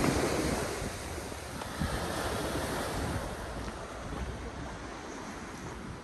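Sea waves breaking and washing over a pebble shore: the hiss of a wave's wash is loudest at the start and fades away over the next few seconds. Wind rumbles on the microphone throughout.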